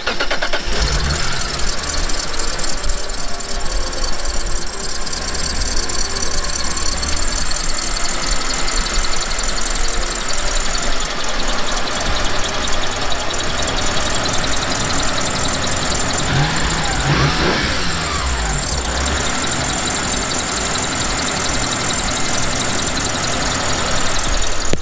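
Mitsubishi 3000GT's 6G72 V6 engine idling, fresh spark plugs just fitted, with a steady high-pitched squeak from the accessory drive belt. About two thirds of the way in there is a brief rise and fall in pitch.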